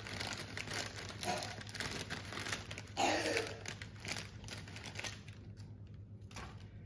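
Crinkling plastic bag of cookie mix being handled and cut open with scissors, loudest about three seconds in and dying down near the end.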